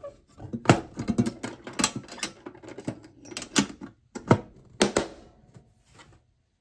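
Stanley Classic steel lunch box being packed and shut: gear knocking against the metal box, then the lid closing and its metal latches snapping shut, a string of clicks and knocks with several sharp snaps about four to five seconds in.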